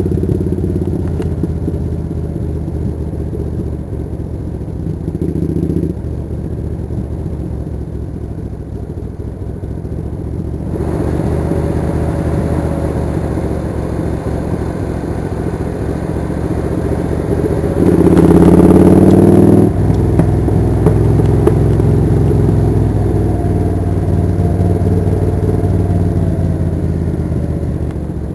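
Suzuki Intruder 800 motorcycle's V-twin engine running under way, its note shifting in pitch and loudness as the bike is ridden; it grows louder about eleven seconds in and is loudest for a couple of seconds about eighteen seconds in.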